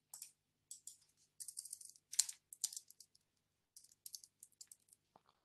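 Typing on a computer keyboard: a run of faint, irregular key clicks, some coming in quick clusters.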